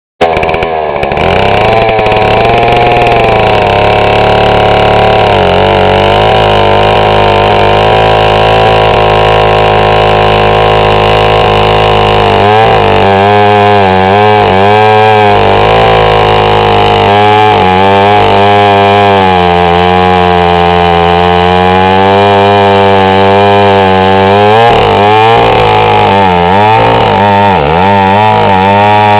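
Two-stroke chainsaw running loud and steady at high speed, then from about halfway its engine speed repeatedly drops and climbs back.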